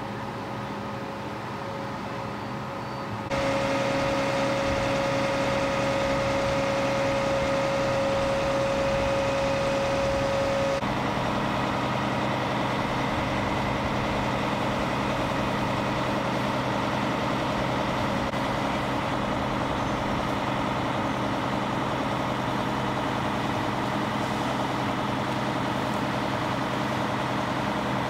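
Heavy diesel truck engine, likely a fire engine at the scene, running steadily at idle. It gets louder about three seconds in, and a steady whine sits over it until about ten seconds in.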